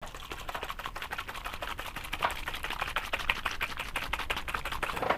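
Small jar of Micro-Mark rust wash being shaken: a fast, even run of sharp rattling clicks.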